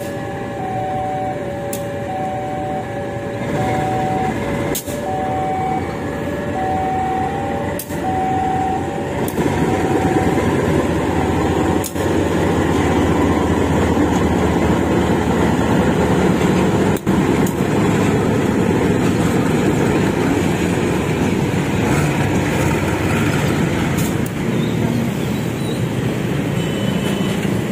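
Level-crossing warning signal sounding two alternating tones for the first ten seconds, over a KAI CC 203 diesel-electric locomotive running past close by. The locomotive's engine grows louder about ten seconds in and stays steady, with a few sharp clicks along the way.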